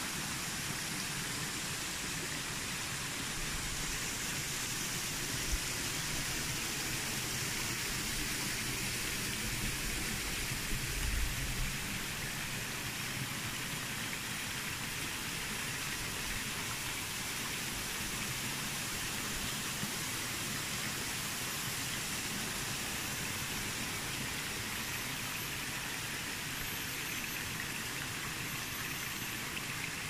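Steady, even hiss of forest ambience, with a few low thumps about ten to eleven seconds in and a faint, high, on-and-off tone in the second half.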